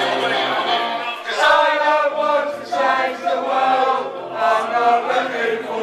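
Men singing together in a chant, one man leading through a handheld microphone, in rising and falling phrases.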